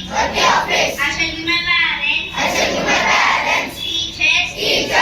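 Schoolchildren's voices speaking without a break; the words are not made out.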